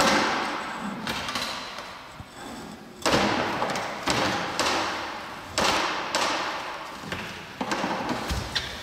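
A wooden bucket with metal hoops knocking and scraping on a concrete floor as a young giant panda shoves it around with its head inside: a series of about ten irregular thuds, each trailing off.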